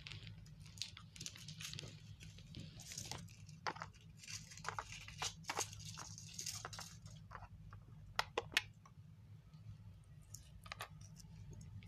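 Foil wrapper of a chocolate surprise egg being torn and crinkled open, followed about eight seconds in by a few sharp snaps, over a steady low hum.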